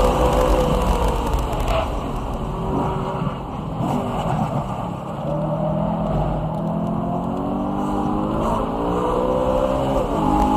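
BMW E92 M3's V8 engine at speed on track. The revs fall away for the first few seconds, then climb steadily from about five seconds in, with a sharp drop near the end as it shifts up and pulls again.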